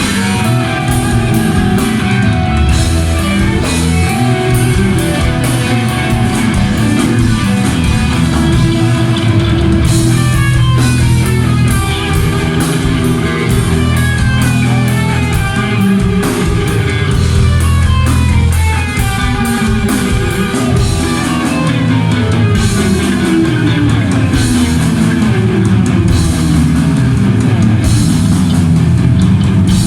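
Heavy metal band playing live: distorted electric guitar running fast strings of notes up and down over bass guitar and a drum kit with steady cymbal hits.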